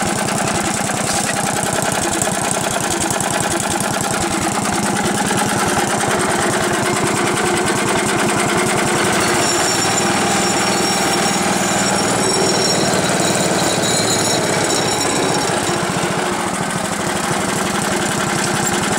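A 10 hp cast-iron Briggs & Stratton single-cylinder engine running steadily, rattling around on the table it is set on.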